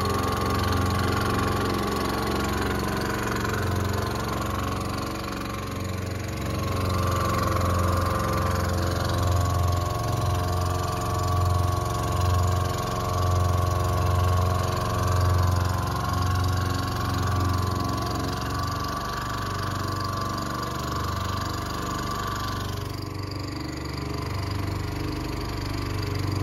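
Small petrol engine running steadily at constant speed on a boat, with a low throb that swells and fades and a steady higher whine over it.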